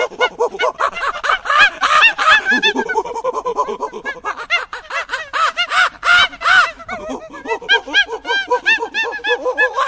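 A flock of birds calling: many short, arched calls overlapping in a dense, unbroken chorus.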